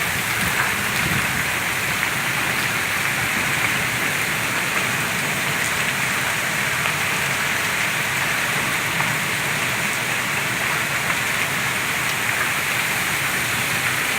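Steady, unbroken rush of a storm, with rain as the main sound.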